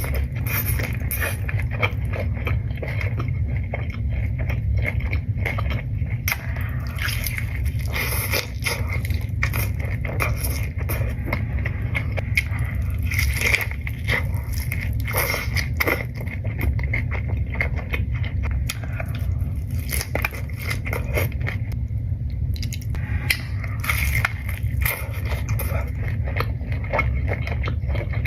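Close-miked eating of birria tacos: a run of crisp bites, crackling crunches and chewing over a steady low hum.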